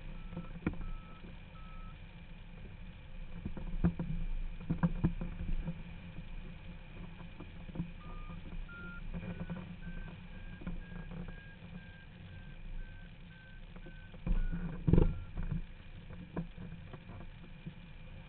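Hang-glider variometer beeping in short, evenly spaced tones, a few in the first two seconds and then a longer run from about eight seconds in whose pitch steps up and eases back down near fifteen seconds: the vario signalling climb in lift. Underneath is steady wind rush on the microphone, with a few louder thumps around four to five seconds and fifteen seconds in.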